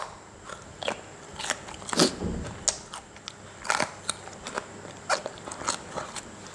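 Close-miked mouth sounds of eating spicy Thai instant-noodle salad (yum mama): irregular wet chewing clicks and light crunches, with a longer, lower mouth sound about two seconds in.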